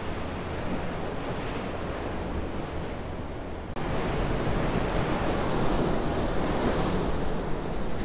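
Ocean surf rushing in foaming sheets over a rocky shore, a steady wash of water with some wind on the microphone. It breaks off abruptly a little under four seconds in and picks up again slightly louder.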